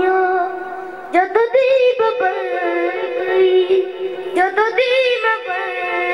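A boy singing a slow devotional chant solo into a microphone with no accompaniment, holding long, wavering notes, with two short breaks for breath.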